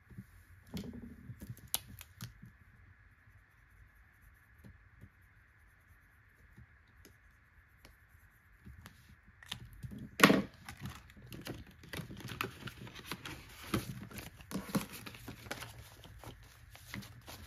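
Faint scratching of a marker colouring in a paper chart, then about ten seconds in a sharp knock followed by the crinkling and snapping of paper banknotes being fanned through and counted.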